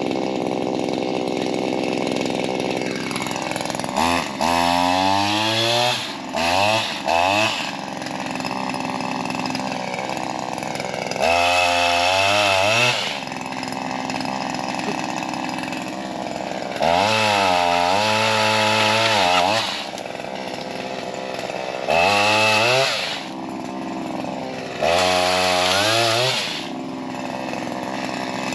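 Shindaiwa M230 multi-tool's small two-stroke engine idling, then revved hard about seven times for a second or two at a time as the pole saw head cuts into tree limbs, dropping back to idle between cuts.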